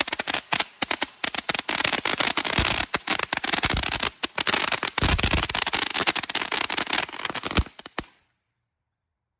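Cannon Brand Zombie Slayer handheld firework fountain spraying with a loud hiss and dense crackling pops, cutting off suddenly about eight seconds in.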